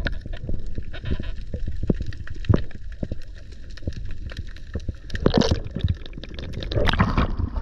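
Water gurgling and crackling against an underwater camera, with a low rumble and two louder rushes of bubbling, one about five seconds in and one about seven seconds in.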